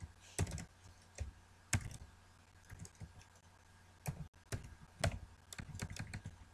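Computer keyboard keystrokes. A few separate key presses come in the first two seconds, then a quicker run of typing starts about four seconds in.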